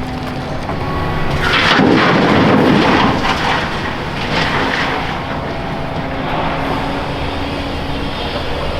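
Volvo EC480EHR demolition excavator's diesel engine and hydraulics running steadily, with a louder spell of rattling and scraping from about one and a half to three and a half seconds in, as the bucket works crushed concrete.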